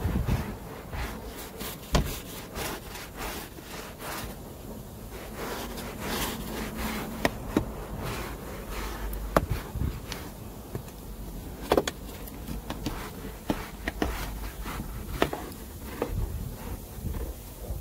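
Small hand brush scrubbing a foam-soaked vehicle floor carpet in rapid back-and-forth rasping strokes, with a few sharper knocks now and then.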